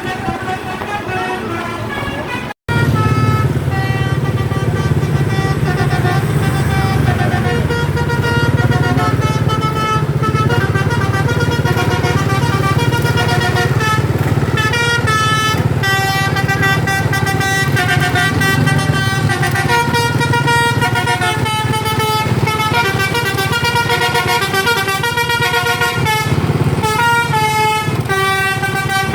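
Basuri 'telolet' multi-tone bus horn playing a tune, several notes sounding together and stepping to new pitches every fraction of a second, over the steady hum of the bus's engine. The sound cuts out for an instant about two and a half seconds in and comes back louder.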